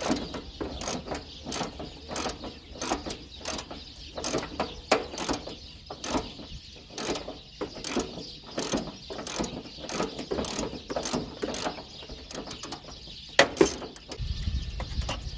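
Ratchet wrench clicking as a bolt on the ignition coil's bracket is turned, a steady run of short clicks about two to three a second, with one louder clack near the end.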